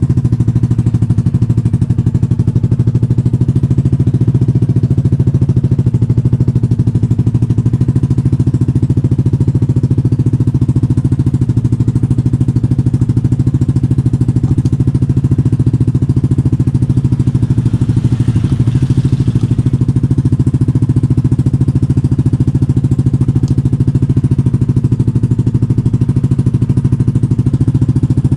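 Motorcycle engine running steadily through an SC-Project aftermarket exhaust with a modified elbow pipe, a rapid, even exhaust pulse with no revving.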